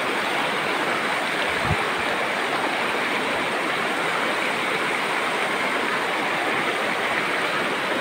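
Shallow stream rushing over and around rocks in a steady, even wash of running water.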